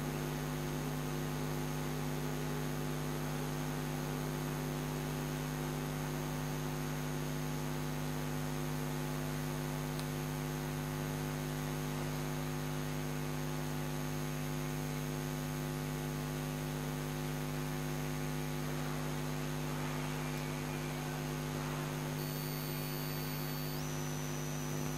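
Steady electrical mains hum: one low tone with a stack of evenly spaced overtones, unchanging. Faint rustling of cloth comes in a few seconds before the end.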